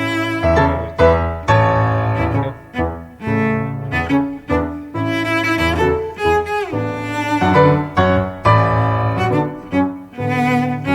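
Instrumental background music, a melody of sustained notes that change about every second.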